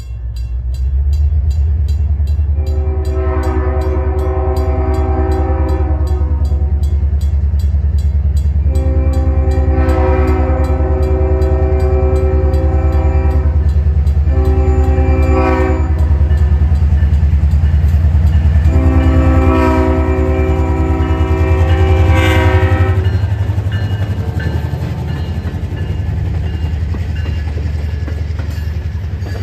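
EMD GP38 diesel locomotive sounding its multi-chime air horn in the grade-crossing signal, long, long, short, long, over the steady rumble of its diesel engine as it approaches and passes. Near the end the horn has stopped and the engine rumble is lower as the passenger cars roll by.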